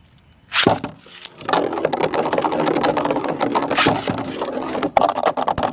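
Two 3D-printed Beyblade spinning tops are launched with a sharp rip about half a second in. They then spin and clatter against each other in a dense, rapid rattle, with louder hits near the middle and near the end.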